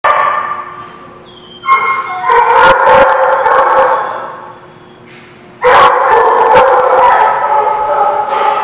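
A dog barking and howling loudly in long, drawn-out bouts: one fading away at the start, another from under two seconds in, and a third starting again after a lull at about five and a half seconds.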